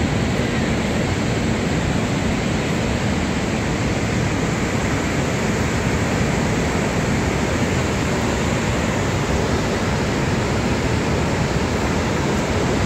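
Niagara's Horseshoe Falls: the steady, even rush of a huge volume of water plunging into the gorge, with no breaks or changes.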